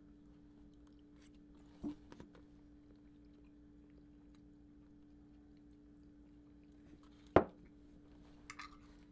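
Dinner-table sounds: quiet chewing and a few knocks of tableware, the loudest a single sharp knock about seven seconds in, over a steady hum.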